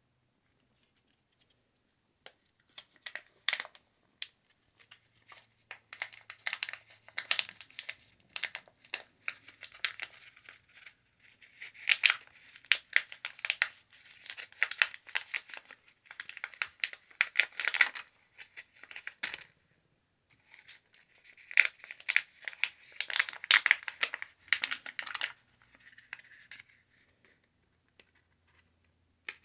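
A small plastic zip-top bag crinkling and rustling in the hands as buds are shaken out of it, in three long spells of dense crackling with short pauses between.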